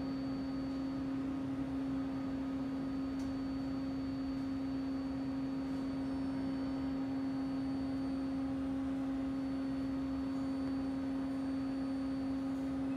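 Steady electrical hum of a stationary R160 subway car standing in the station: one low tone with a fainter high, thin whine above it, unchanging.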